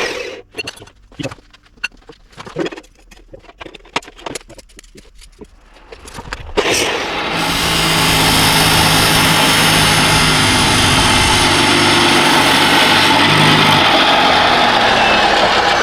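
Scattered clicks and knocks of metal being handled. About six and a half seconds in, an angle grinder with a cutting disc starts cutting steel profile tube, a loud steady grinding that holds to the end.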